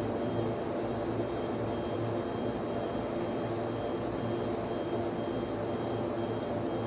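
Server room ambience: the steady whirr of cooling fans in servers and network switches, with a low hum and a faint high whine that comes and goes.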